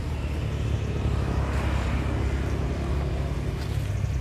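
A motor vehicle's engine running with a steady low rumble, and its noise swells briefly around the middle as if passing by.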